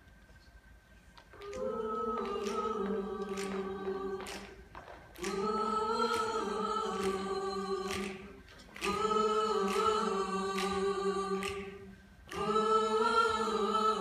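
Mixed-voice a cappella ensemble singing four long held chords, each about three seconds with a short break between them, starting about a second in. These are the closing chords of the song.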